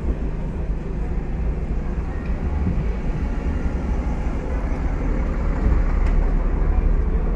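Busy street traffic: the engines of slow, queued cars running as a steady low rumble under a general street din.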